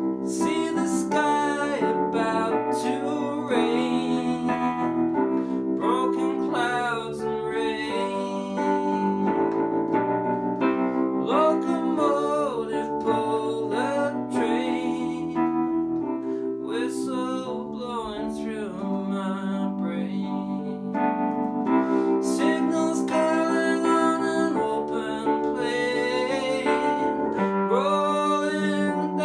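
Electric piano playing sustained chords, with a man's voice carrying a wordless melody over it.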